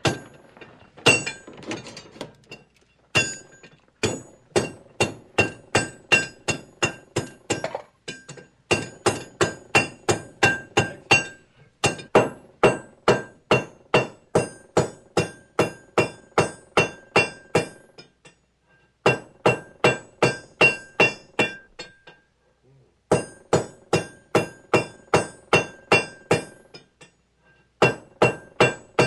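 Blacksmith's hammer striking hot metal on an anvil. The ringing blows come in runs of about three a second, with short pauses between runs.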